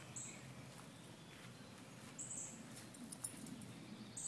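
A dog moving about on grass and dirt, with faint rustling as it walks and noses the ground.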